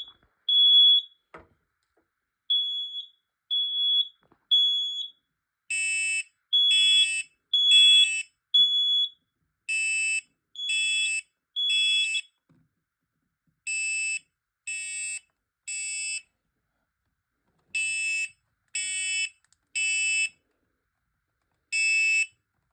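Two smoke alarms, a First Alert and a Kidde, sounding the three-beep temporal evacuation pattern after a quick spray of test smoke. One gives a clear single-tone beep from the start. The second, harsher and buzzier, joins about six seconds in, and the first falls silent about halfway through.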